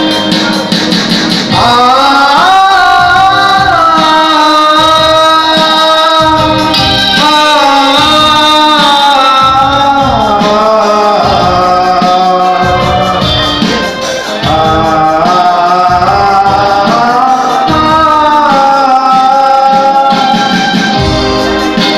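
A man singing a song into a microphone with a live band of electric guitar and keyboard, loud through PA speakers. The singing comes in about a second and a half in.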